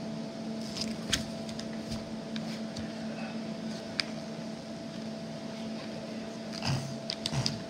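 A steady low room hum with a few sharp clicks, and a short cluster of clicks and soft knocks near the end.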